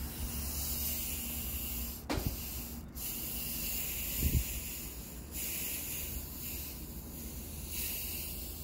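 A steady hiss that steps up and down in level a few times, with a dull thump about two seconds in and another about four seconds in.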